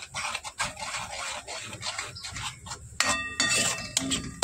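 A metal spoon scraping and stirring in a cooking pot, then several sharp metallic knocks that ring, about three seconds in, as the spoon strikes the pot or bowl.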